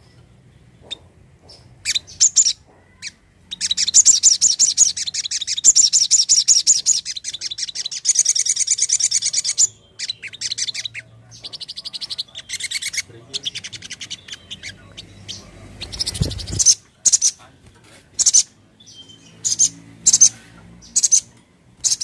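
Caged sunbird (sogon) singing in high, sharp notes, with a long, fast rolling trill about four seconds in that lasts some six seconds, then separate piercing chips. There is a brief low thump about two-thirds of the way through.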